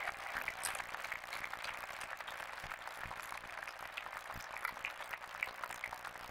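Audience applauding: many hands clapping steadily at the end of a squash rally.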